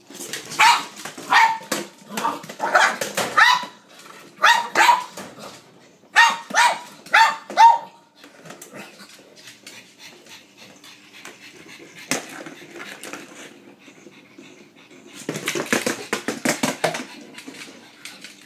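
A pug barking sharply over and over, about a dozen barks in quick clusters, eager for the ball. After that, quieter rattling and rolling noises come from the battery-operated Weasel Ball moving on the wooden floor, with a louder burst of noise near the end.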